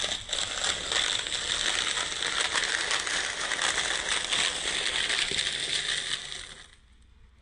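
A car tyre slowly rolling over a row of crisp, honeycomb-shaped puffed snack pieces, crushing them with a dense, continuous crackling crunch that stops suddenly near the end.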